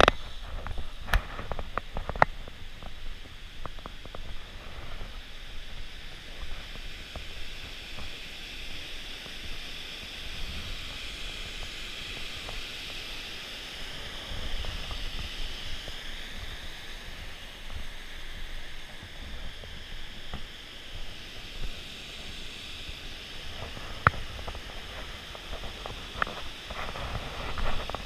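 Steady rush of a mountain stream running over rock, with a low rumble on the microphone and a few sharp knocks, more of them near the end.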